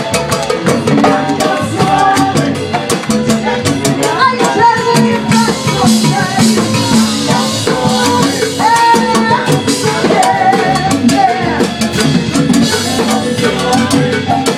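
Live salsa band playing: hand drums and timbales drive a busy rhythm over upright bass, with horns playing held melodic lines above.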